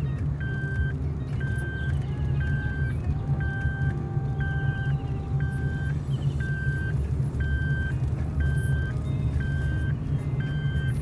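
Steady low rumble of a car's engine and tyres heard inside the moving car's cabin, with an electronic warning beep repeating about once a second, each beep about half a second long.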